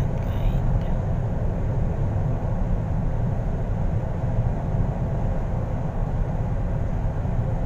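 Steady low road rumble inside a car's cabin while driving at highway speed.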